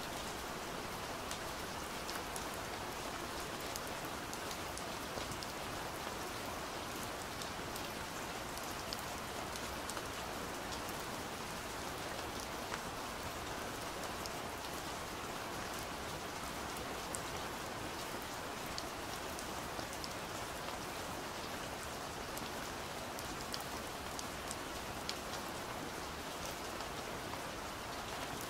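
Steady rain falling, a continuous hiss with scattered drops ticking through it.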